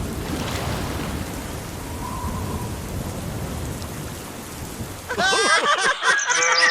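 Steady rain with low rumbling thunder, a storm effect on the soundtrack. About five seconds in the rain stops and high-pitched cartoonish voices take over.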